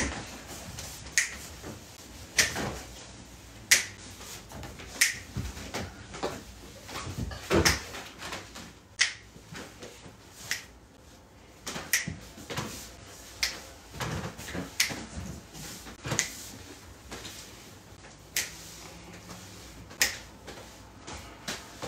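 A person snapping their fingers to a steady beat, about one sharp snap every second and a quarter, with softer thumps and scuffs of movement in between.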